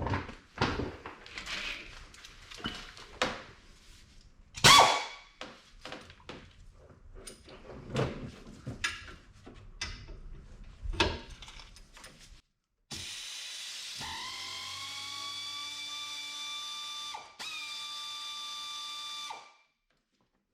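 Knocks and clinks of tools on metal, then a power tool spins up with a rising whine, runs steadily for about five seconds with one short break, and stops, backing out a 13 mm brake caliper bolt.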